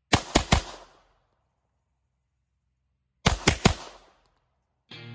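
Pistol fired in two quick strings of three shots, about three seconds apart. Background music comes in near the end.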